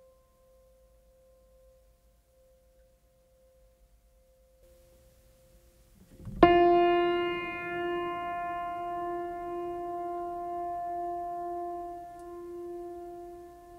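Sparse ambient background music. A faint held tone fades out, then about six seconds in a single bell-like note is struck and rings on for several seconds, its low tone slowly wavering.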